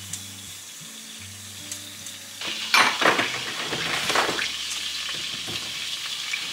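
Cumin seeds sizzling in hot oil in a kadhai for a tadka; the sizzle swells suddenly loud about two and a half seconds in and stays strong.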